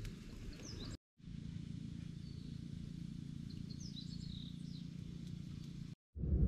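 Outdoor ambience: a steady low background rumble with a few short, high bird chirps, broken twice by brief total silences.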